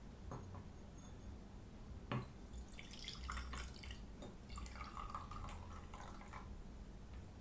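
Coloured water poured from two cups into a clear cup, trickling and splashing as it fills. A single knock about two seconds in, before the pouring.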